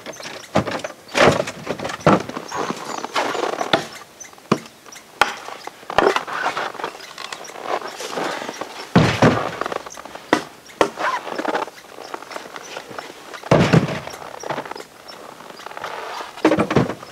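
Scattered knocks and thunks of gear being handled and packed into a wooden cargo box on a freight sled, mixed with footsteps in packed snow. A few longer, louder rustling bursts come about a second in, around nine seconds and near fourteen seconds.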